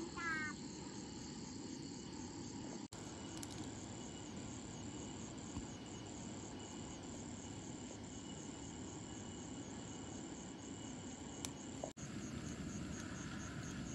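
Handheld butane gas torch held against campfire wood, its flame giving a steady hiss, over a steady high chirping of crickets.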